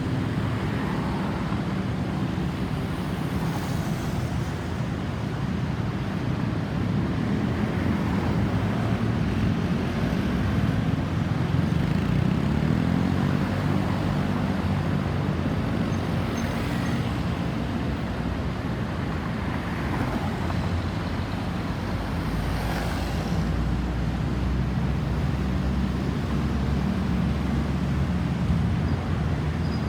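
Road traffic: engines of cars and trucks running steadily, with a few vehicles swishing past. No siren is heard.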